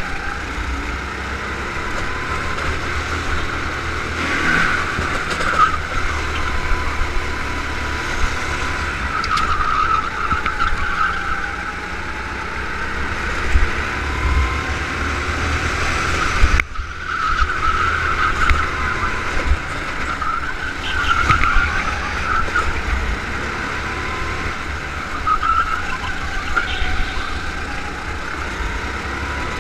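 Go-kart engine heard from onboard the kart, its pitch rising and falling over and over as it accelerates out of corners and lifts into them, over a constant low rumble. The sound cuts out briefly just past halfway.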